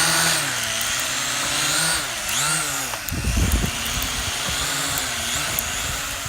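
Vivitar Aeroview DRC446 quadcopter's propellers whining, their pitch rising and falling as the motors correct against gusts. From about three seconds in, wind buffets the microphone with uneven low rumbles.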